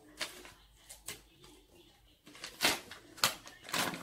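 Paper bag of wheat flour being opened and handled, giving a few sharp crinkles and rustles of paper, the loudest in the second half.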